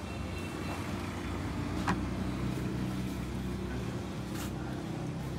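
A motor vehicle engine running steadily, with a sharp click about two seconds in.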